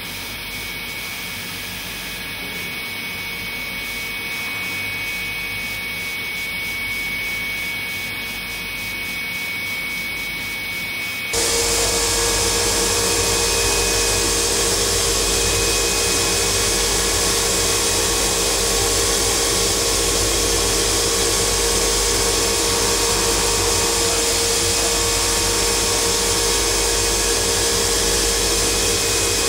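Haas Multigrind CB CNC grinding machine running, its grinding wheel grinding the teeth of a hob cutter: a steady grinding noise. About eleven seconds in, it suddenly gets louder, with a steady hum that then holds.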